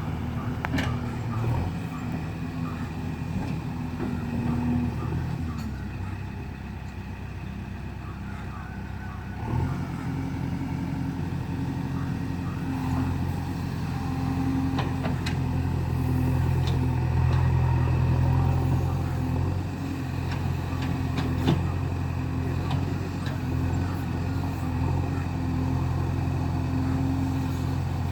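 JCB 3DX backhoe loader's diesel engine running under working load. It picks up sharply about a third of the way in, and a few short knocks and clanks from the machine's work come through the drone.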